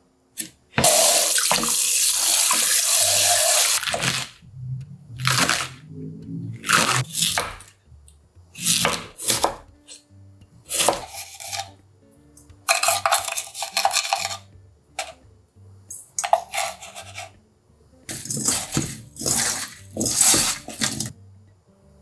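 Kitchen prep sounds: a tap runs for about three seconds, then comes a string of short clinks and scrapes as salt is spooned over cubed Korean radish in a stainless steel bowl. Soft background music plays underneath.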